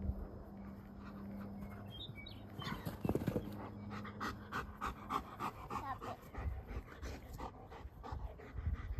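German Shepherd dog panting quickly, about four breaths a second, starting a couple of seconds in.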